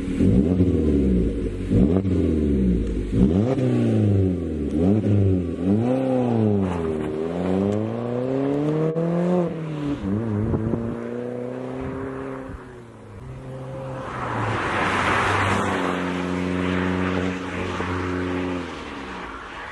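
MG3 hatchback with a stainless cat-back exhaust accelerating away, the engine note climbing and dropping repeatedly as the revs rise and fall. Later it settles to a steadier drone, with a rush of noise partway through.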